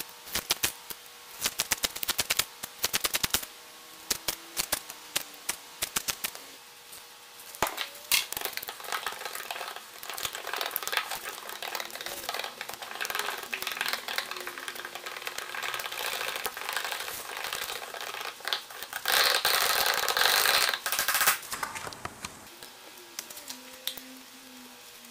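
Fast-forwarded workshop handwork on a fiberglass layup: quick clicking snips of scissors cutting chopped-strand fiberglass mat, then a long stretch of dense scratchy, crackling scraping as resin is stirred in a paper cup and brushed into a mold, loudest for a couple of seconds near the end.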